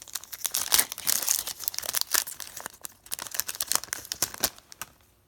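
Upper Deck hockey card pack being torn open, its wrapper crinkling and crackling in quick, dense bursts that thin out near the end.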